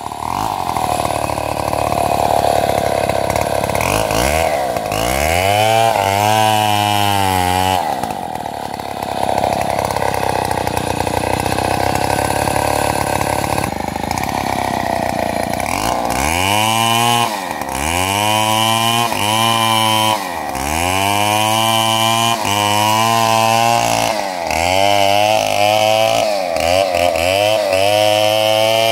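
Stihl MS 070 two-stroke chainsaw running hard, its engine pitch dipping and climbing back again and again as the throttle is eased and reopened. For several seconds in the middle it holds steadier, and near the end the dips come quickly, about one a second.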